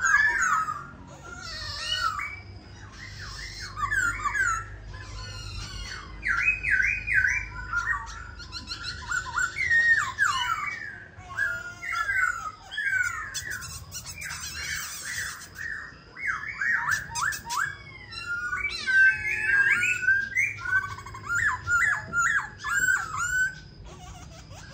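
Black-throated laughingthrush singing a rapid, varied song of loud whistled phrases that slide up and down, mixed with higher scratchy notes, with only brief pauses.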